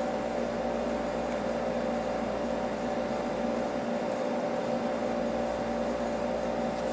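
Steady machine hum: a constant drone with a few steady tones over an even hiss, unchanging throughout.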